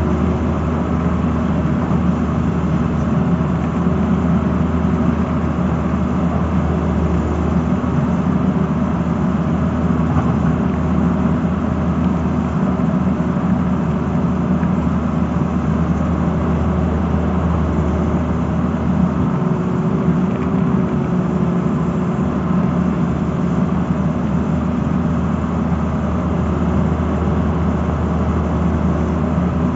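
Tata Hitachi crawler excavator's diesel engine running steadily while the machine swings and works its boom and bucket.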